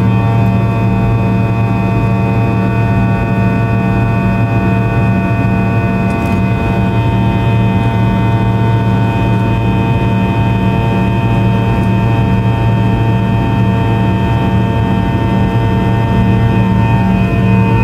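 Fokker 100's rear-mounted Rolls-Royce Tay turbofan engines heard from inside the cabin during the climb after takeoff: a steady, loud drone with a deep hum and several steady whining tones above it.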